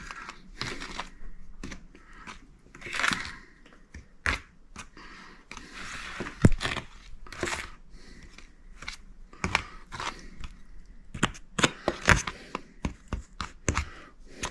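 Seasoned flour being stirred in a bowl with a utensil: irregular scraping and swishing with scattered sharp taps against the bowl.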